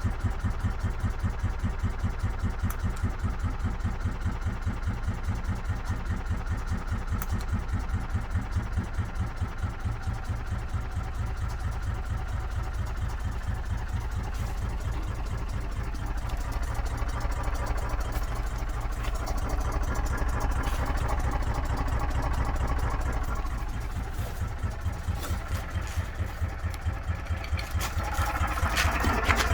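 An engine running at idle with an even, rapid pulsing, its level rising a little in the middle and again near the end.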